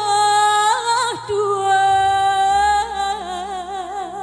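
Woman singing a slow ballad into a microphone, holding long notes that break into a wide vibrato about three seconds in.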